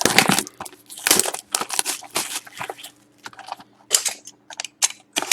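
A sealed box of hockey trading cards being unwrapped and opened: plastic wrap and cardboard crinkling and tearing, with the foil packs rustling as they are pulled out, in irregular bursts.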